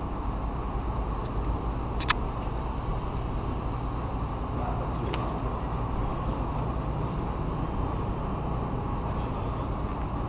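Steady rumble of vehicle noise, with a sharp metallic click about two seconds in and a fainter one a few seconds later.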